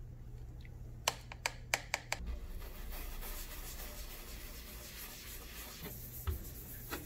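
A toothbrush clacking a few times against a plastic tub of soapy water, then its bristles scrubbing a wet trunk panel with a steady scratchy hiss.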